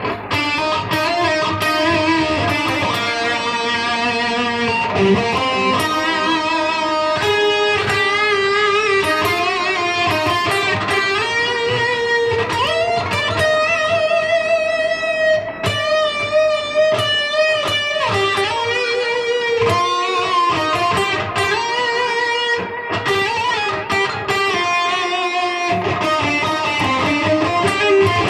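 Electric guitar played through a Zoom G1Xon multi-effects processor on a smooth, melodic lead patch: a single-note melody of held notes with bends and wide vibrato.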